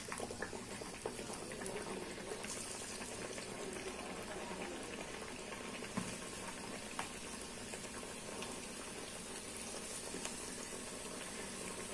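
Hot oil bubbling and sizzling steadily around a raw rice-flour thattai just dropped in to deep-fry, with a few small pops. The vigorous sizzle is the dough's moisture cooking out; it dies down once the thattai is done.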